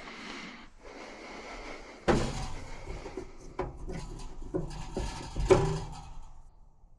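A steady hiss for about two seconds, then a run of knocks and clunks of things being handled, the loudest about five and a half seconds in.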